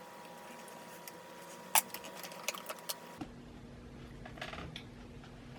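Quiet room tone with one sharp click about two seconds in and a few lighter ticks after it; the background changes abruptly past the middle.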